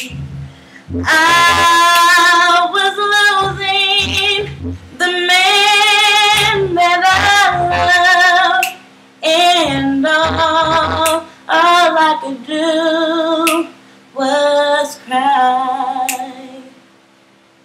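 A woman singing long, drawn-out vocal runs with heavy vibrato, in several phrases separated by short breaths. This is the closing ad-lib of a soul ballad, and it ends about seventeen seconds in.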